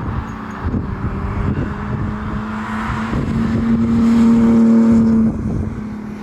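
Car engine running at steady revs over wind and road rush. It gets louder and fuller about halfway through, then backs off suddenly near the end.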